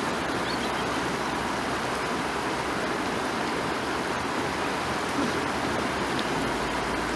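Steady rushing of a fast-flowing stream, an even wash of water noise.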